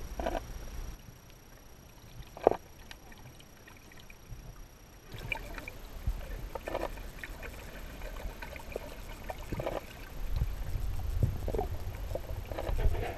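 Muffled sound of moving water heard from under the surface of a swimming pool: a low rumble with scattered knocks and clicks, one sharp knock about two and a half seconds in, and the rumble growing louder near the end.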